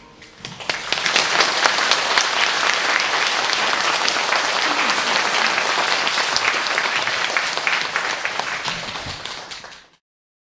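Audience applauding: the clapping swells within the first second, holds steady, then thins out and stops abruptly near the end.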